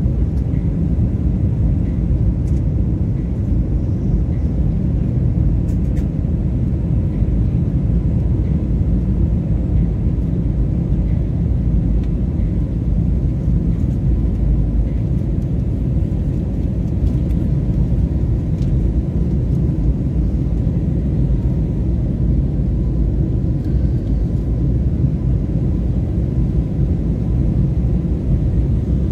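Jet airliner cabin noise during the climb after takeoff: the engines and rushing air make a steady low rumble heard from inside the cabin.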